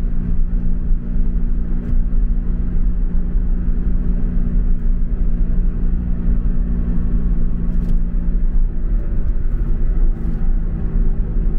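Car cabin noise while cruising on a highway: a steady low rumble of engine and tyres on the road, with a constant engine hum underneath.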